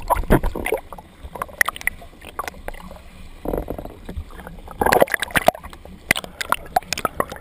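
Seawater sloshing and gurgling against a GoPro's underwater housing as it bobs at the surface. It makes irregular sharp knocks and splashes, with two louder rushes of splashing about three and a half and five seconds in.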